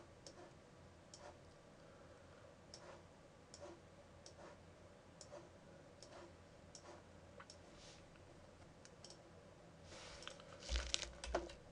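Faint, short clicks about once a second over quiet room tone, then a louder cluster of clicks and knocks near the end, from a computer mouse and keyboard being used at the desk.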